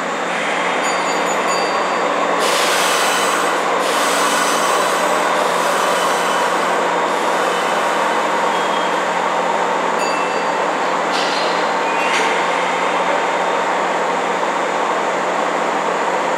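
Kintetsu 1810-series two-car local electric train standing at an underground platform just before departure: a steady hum from its onboard equipment with a constant low tone. A few stretches of hiss come and go.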